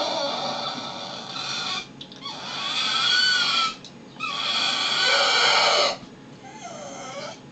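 A crated pit bull crying in long, drawn-out whining howls: three long cries with short breaks between them, then a softer, wavering one near the end.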